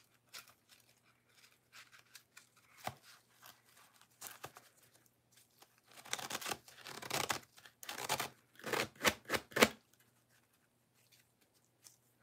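Packaging being torn and crinkled by hand in irregular short rips, sparse at first, then a run of louder tearing strokes about six to ten seconds in.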